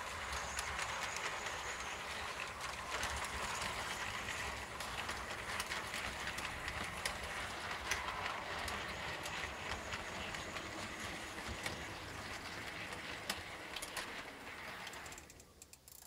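H0-scale model ICE train running along the track: a steady rolling rattle with many small clicks, dropping away sharply near the end.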